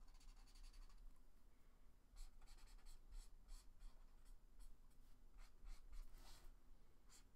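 Faint scratching of a felt-tip marker on sketchbook paper, in quick short strokes a few times a second from about two seconds in.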